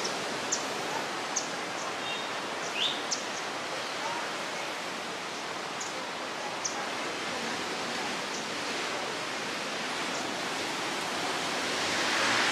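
Steady rush of surf and wind on a beach, swelling near the end, with a few short high chirps in the first few seconds.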